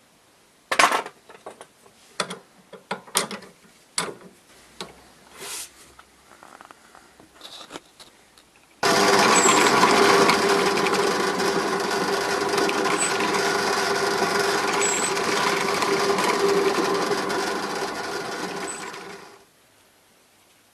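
Workshop clatter of things being handled and set down, then an electric power tool switched on abruptly about nine seconds in. It runs steadily with a steady tone for about ten seconds, then winds down after being switched off.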